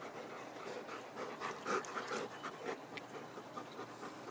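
Labrador retriever panting, about four breaths a second.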